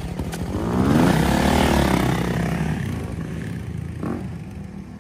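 Four-stroke dirt bike engine revving, its pitch climbing and then dropping back, loudest about a second in and fading away as the bike moves off.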